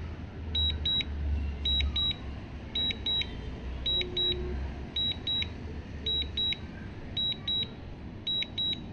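DJI drone remote controller beeping a quick double beep about once a second: the alert for Return to Home on low battery. A low rumble runs underneath.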